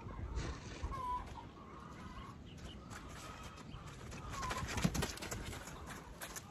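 A horse's hooves thudding on soft dirt as it moves off into a trot on a lunge line, with a loud thud a little under five seconds in. A few short, high chirping notes sound faintly now and then.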